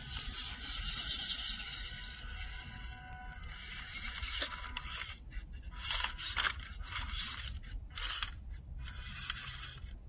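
Electric motor and gearbox of a WPL C24-1 1/16-scale RC crawler truck running, with several short bursts of throttle in the second half as it climbs over stone edging.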